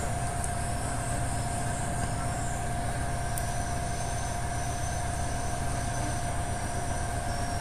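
Electric bicycle hub motor running steadily under a potentiometer standing in for the broken throttle: a constant whine over a low hum, holding one pitch.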